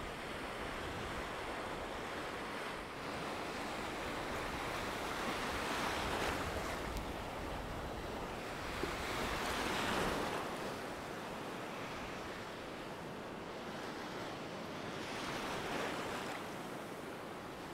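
Sea waves washing and breaking in shallow water around a wading angler. The surf swells louder every few seconds as each wave passes.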